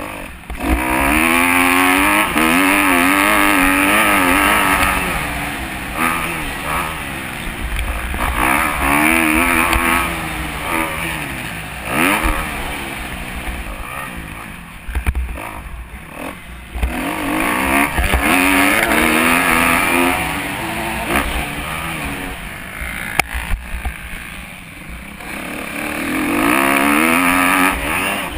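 Kawasaki 250 motocross bike's engine on the race track, revving hard and falling off again and again as the throttle is opened and rolled off, its pitch climbing through each gear, heard from on board with wind noise on the microphone.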